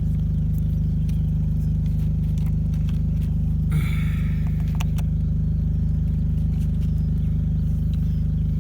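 Portable 6 kVA generator engine running steadily with a low hum. A few light clicks and a brief scrape of handling sound about four seconds in.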